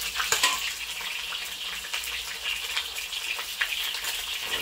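Pieces of Spanish mackerel sizzling steadily in a hot wok, with scattered sharp crackles. They are being seared only to brown the outside before stewing, not to cook them through.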